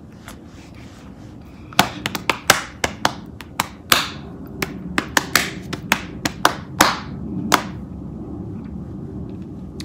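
Hand claps: a quick, slightly uneven run of sharp claps, about four a second, starting about two seconds in and stopping about two seconds before the end.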